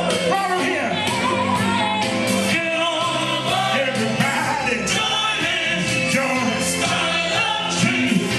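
Upbeat oldies dance song playing loud, a lead vocal over a steady beat and bass line.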